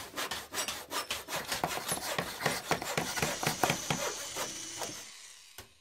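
End-sting sound effects: a dense, irregular run of scratching and rasping strokes, fading out about five seconds in, followed by a couple of faint ticks.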